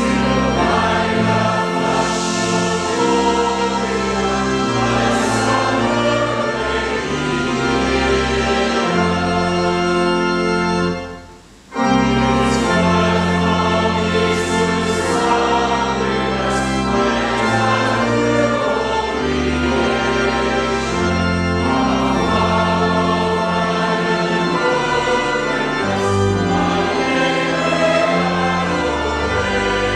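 A large mixed-voice school choir and congregation singing a hymn with organ accompaniment, in held chords. The music breaks off briefly about eleven seconds in, then comes back at full strength.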